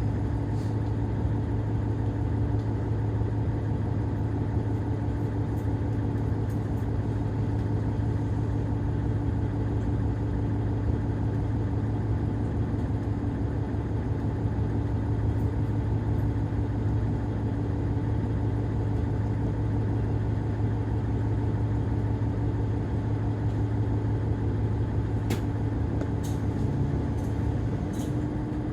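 Diesel railcar engine idling steadily, a constant low hum, heard from inside the car, with a few faint clicks near the end.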